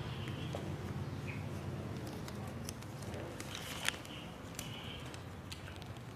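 Low, steady room noise with scattered faint clicks, one sharper click about four seconds in, and a few brief, faint high chirps.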